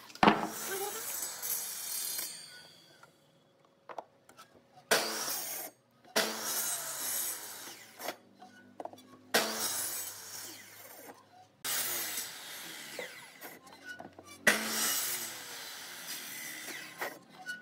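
Compound miter saw cutting through a dry tree branch: a series of separate cuts, each a second to three seconds long, with short quiet breaks between them.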